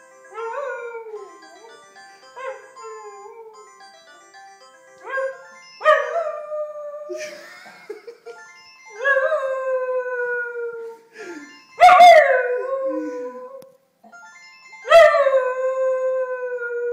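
Small long-haired dog howling along with a ringing telephone's melodic ringtone. There are about eight howls, each rising briefly and then held or falling away. The longest and loudest come in the second half.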